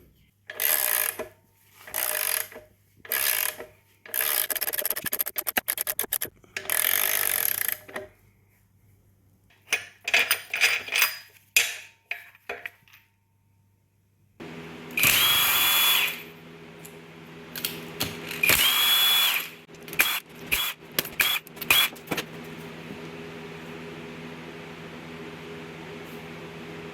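Handheld power tool running in repeated short bursts, a few pulls of the trigger a second or so long, with clicks and knocks of tools on metal between them. In the second half a steady hum runs underneath.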